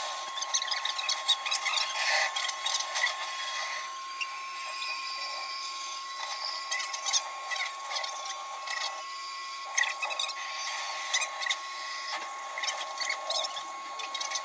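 Tamiya Mini 4WD brushed motor running submerged in water and oil during break-in, a steady high-pitched whine with irregular scratchy crackling over it. The commutator is wearing in to the round shape of the armature.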